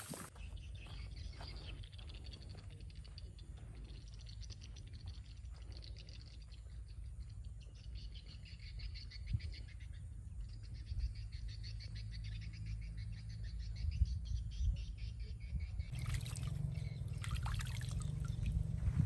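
Steady low wind rumble on the microphone with faint high-pitched chirping. From about three seconds before the end, louder water splashing and trickling as small fish are let go from cupped hands into the pond.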